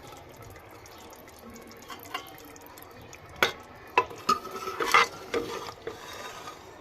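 Serving spoon scraping and knocking against a cooking pot as a curry is ladled out. It is quiet at first, then gives several sharp clinks in the second half, one with a short ring.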